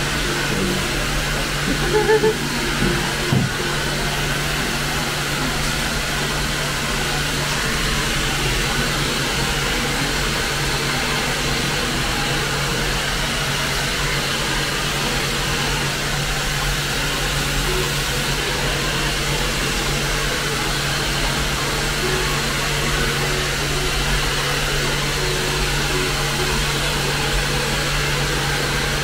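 Hair dryer blowing steadily: an even rush of air over a low motor hum. A few brief louder sounds come about two to three seconds in.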